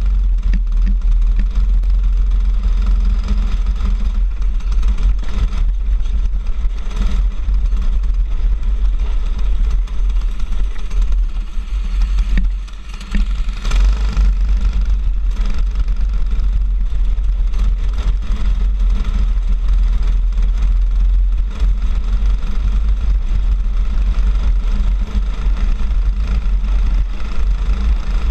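Racing go-kart engine running hard, heard from the driver's helmet camera under a heavy low rumble of wind on the microphone; the sound briefly drops about halfway through.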